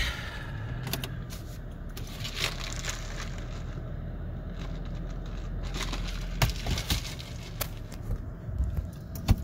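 Truck engine idling with a steady low hum, with scattered clicks and clunks as it is shifted into four-low.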